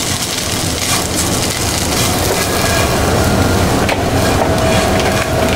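Scrambled eggs sizzling in a nonstick frying pan as a silicone spatula stirs and scrapes them, with scattered scraping clicks of the spatula on the pan. A steady tone comes in about halfway through.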